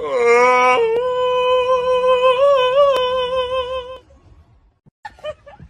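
One long held vocal note lasting about four seconds, steady in pitch apart from a brief waver near the end of it.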